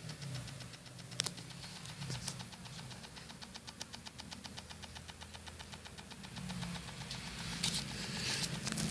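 JBL subwoofer playing low bass notes with a fast rattling buzz riding on each note, growing louder near the end. The rattle is the fault in the sub that the owner is asking about.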